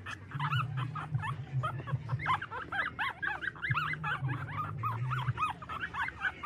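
Newborn puppies squeaking and whimpering while nursing: a quick run of short high cries, several a second, each rising and falling in pitch, over a low hum that comes and goes.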